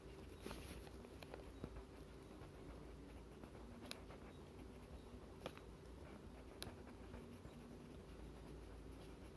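Faint scratching of a red crayon on paper in short colouring strokes over a low hum, with three light ticks spread through the middle.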